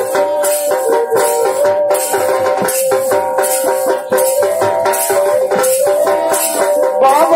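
Live Purulia Chhau dance music: barrel drums beat under a sustained melody line, typical of the shehnai that leads this music, with regular rattling accents. Near the end the melody slides up and down in pitch.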